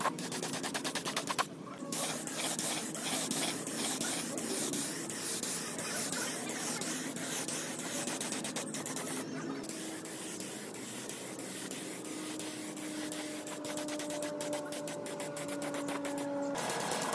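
Gravity-feed spray gun hissing as it sprays paint, in long steady passes broken by short pauses about a second and a half in and again about nine seconds in.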